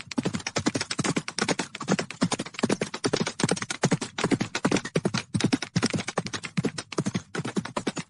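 Hoofbeats of a large herd of horses galloping on dirt: a rapid, uneven stream of thuds.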